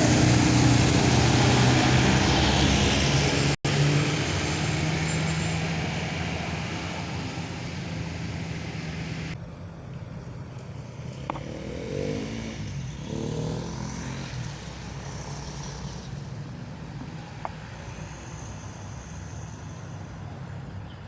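Road traffic: a heavy vehicle's engine running loud and close, then fading as it moves away, followed by quieter passing traffic.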